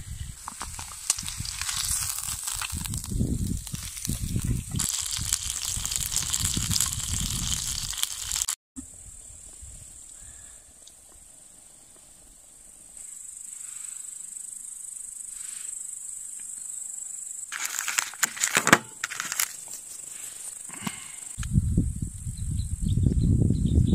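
Steak sizzling in a cast-iron skillet over a campfire. After a cut comes a quieter stretch with a few sharp clicks, and then wind buffeting the microphone near the end.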